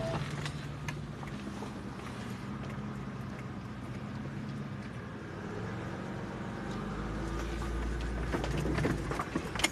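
Third-generation Toyota 4Runner engine running steadily at low speed off-road, with a deeper rumble building near the end and a sharp knock just before the end.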